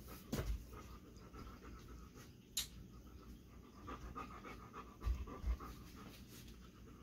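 Belgian Sheepdog panting. A few low thumps come near the start and twice about five seconds in, with a sharp click about halfway.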